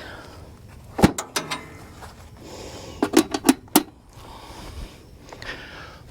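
Sharp clicks and knocks of equipment being handled, in two quick clusters: a few about a second in, and four or five more about three seconds in.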